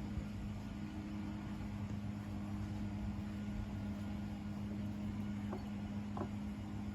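An engine running steadily, a constant low hum, with a few faint taps in the second half.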